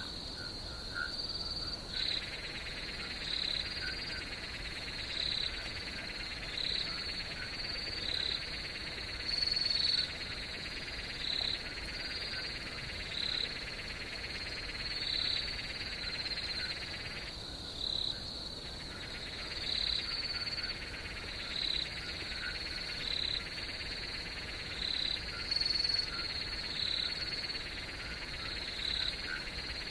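Night chorus of insects trilling steadily, with a frog calling over them about every one and a half to two seconds. A second, lower layer of the insect chorus briefly drops out twice.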